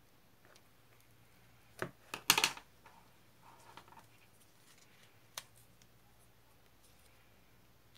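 A few sharp clicks and knocks in a small room: a quick run of them about two seconds in, the loudest, a few faint ticks just after, and one more click about five seconds in.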